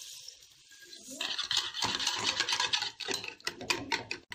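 Sugar pouring into beaten eggs with a faint hiss, then a wire whisk beating the egg and sugar in a bowl from about a second in: fast, continuous scraping and clicking strokes of the wires against the bowl.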